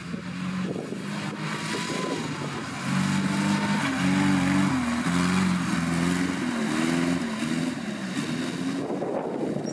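Off-road 4x4's engine revving under load, its pitch rising and falling repeatedly; it gets louder about three seconds in.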